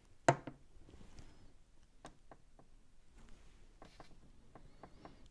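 Small wooden strips handled against a wooden model ship hull: one sharp tap about a third of a second in, then a scatter of faint light clicks and taps.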